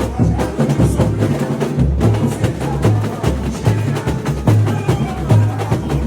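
Samba school bateria playing a samba batucada: deep bass drums beating in a steady pulse under a dense, fast layer of sharp drum and percussion strikes.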